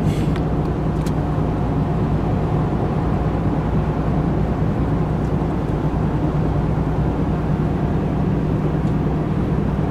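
Steady engine hum and road rumble inside the cabin of a moving pickup truck, with a couple of light clicks in the first second.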